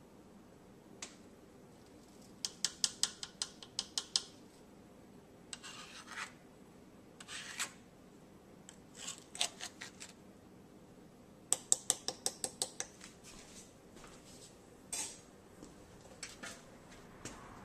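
A kitchen utensil scraping and clicking against a dish: a run of quick clicks a couple of seconds in and another past the middle, with short scrapes between.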